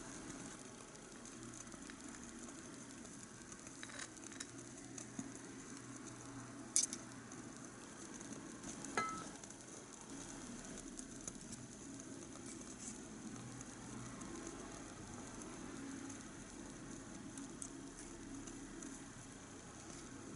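Tiny pot of onion soup simmering with a faint, steady sizzle. A few light clicks, a sharp click about seven seconds in, and a short ringing clink about two seconds later.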